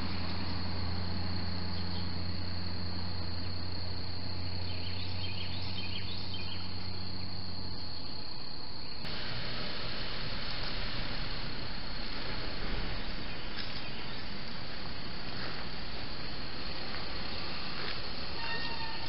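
Outdoor background noise through a security camera's microphone: a steady hiss with a thin high-pitched whine, and a low hum that stops about eight seconds in. The hiss turns brighter abruptly about a second later.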